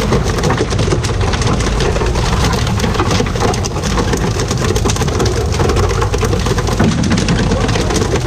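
Steady, dense splashing of the sea surface against the side of a pole-and-line tuna fishing boat, hissing like heavy rain on water, over the low, steady running of the boat's engine.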